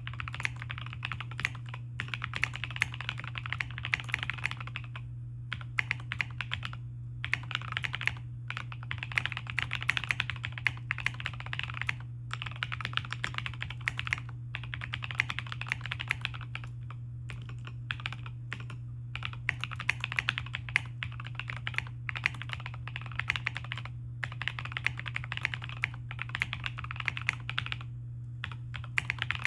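Fast typing on a Lofree Dot Foundation 75% mechanical keyboard with matte keycaps: a clicky patter of keystrokes in runs of a few seconds, broken by brief pauses. A steady low hum sits underneath.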